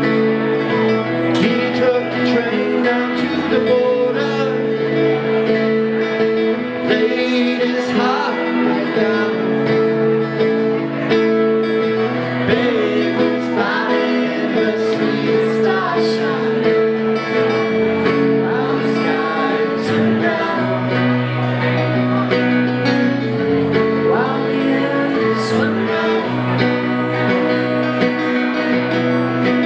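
Two acoustic guitars playing a song together, with a woman and a man singing over them.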